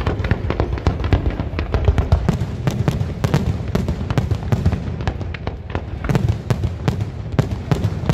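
Fireworks display: a dense, continuous stream of sharp bangs and crackles from aerial shells bursting and low comets firing, over a deep rumble.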